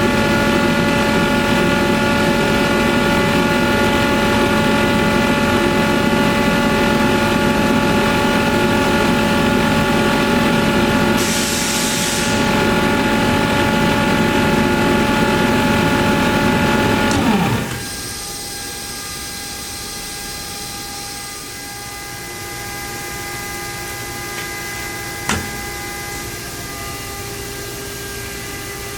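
Ingersoll Rand UP6-10-125 10 HP rotary screw air compressor running with a steady hum, with a brief hiss about eleven seconds in; about seventeen seconds in it is shut off and winds down with a falling pitch. A fainter steady hum and a single sharp click remain afterward.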